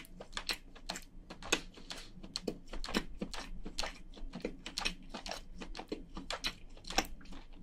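Close-miked chewing of cooked crayfish meat: irregular wet mouth clicks and smacks, several a second.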